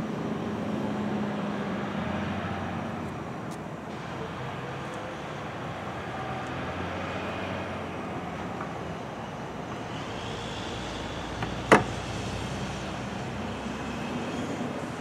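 Steady road-traffic noise, with one sharp metallic click about twelve seconds in as a Speedy-Bar transfer handle is seated in the car's door striker.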